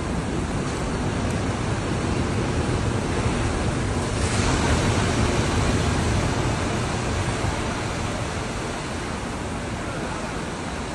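Sea waves surging and breaking, a continuous rushing wash that swells to its loudest about four seconds in and then eases off, with wind buffeting the microphone.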